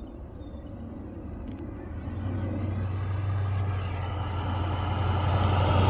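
1963 Plymouth Sport Fury's 383 V8 engine running low and steady as the car approaches, its rumble growing louder from about two seconds in.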